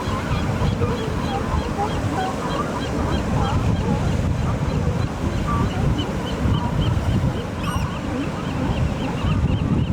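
Ocean surf with wind on the microphone, and a flock of birds calling continuously over it in short, quickly repeated calls.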